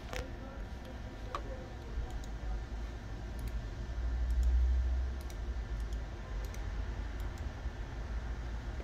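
Light computer mouse clicks, one sharper click at the start and many faint ones scattered through, over a steady low hum that swells briefly about four seconds in.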